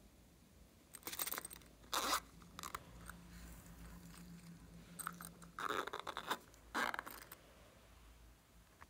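A soft avocado-shaped coin purse being handled and pressed into glossy slime with glitter: several short scraping, crunchy bursts.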